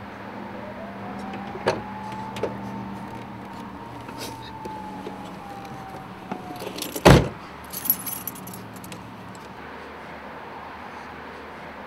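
Keys jangling and a few clicks as a pickup truck's driver-side door is worked, with one loud thump about seven seconds in as the door shuts, followed by a short rattle of keys. A faint whine rises and then slowly falls during the first half, over a steady low hum.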